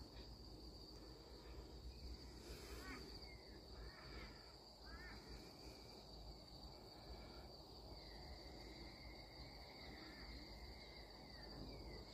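Faint riverside bush ambience: a steady high-pitched insect drone, with short bird chirps scattered through and one longer held call in the middle.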